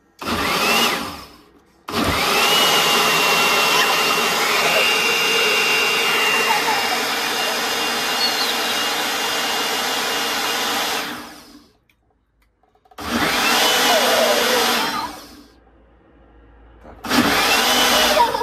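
Small electric citrus juicer motor running in four separate bursts, each spinning up with a rising whine that then holds steady. The longest burst lasts about nine seconds; the others last one to three seconds.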